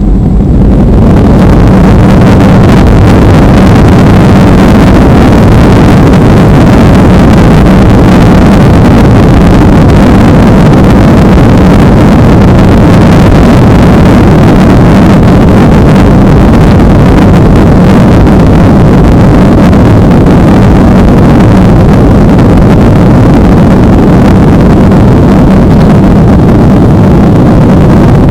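Steady, loud roar of engine and air noise heard inside an airliner cabin, with a constant low hum.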